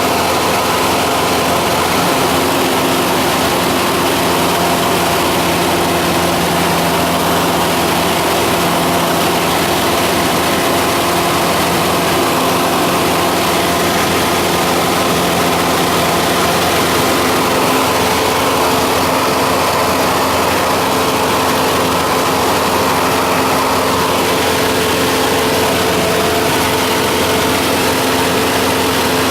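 Cessna 172's piston engine and propeller droning steadily, heard inside the cabin, with a broad rush of noise under the engine tones. About halfway through the pitch of the drone shifts slightly.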